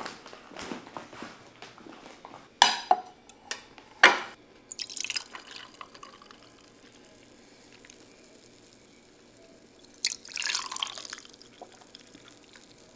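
Juice poured from a bottle into ribbed glass tumblers: two splashing pours, a short one about five seconds in and a longer one about ten seconds in. A few seconds in come two sharp knocks, the loudest sounds here.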